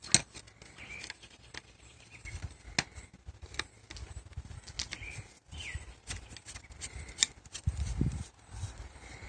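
Sharp clicks and knocks of pressure washer extension wand sections being handled and plugged together, with a heavier low thump about eight seconds in.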